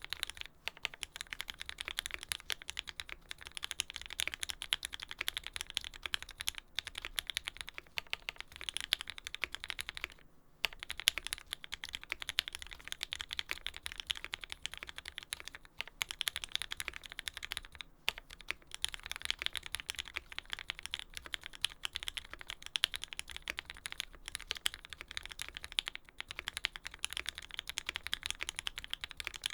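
Fast, continuous typing on a custom mechanical keyboard (Lyn Special Whale, aluminium plate, lubed Tealios V2 linear switches with Cherry top housings, GMK keycaps), a dense run of key clacks with a brief pause about ten seconds in.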